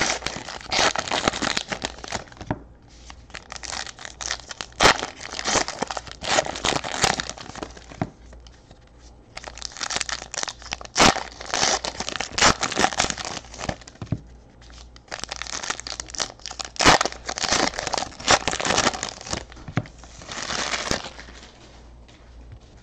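Foil trading-card pack wrapper crinkling and tearing as it is opened and handled, in several bouts of crackling with sharp clicks and short pauses between them.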